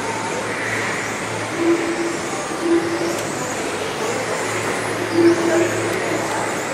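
Several front-wheel-drive radio-controlled touring cars running laps on an indoor carpet track: a steady, even whirring of the cars, with a brief low tone that comes and goes three times.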